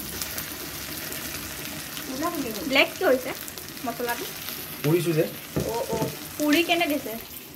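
Sliced onions and a ground spice mix frying in hot oil in a metal wok: a steady sizzle, with the spatula clicking and scraping against the pan as it stirs. A person's voice comes in over the frying from about two seconds in.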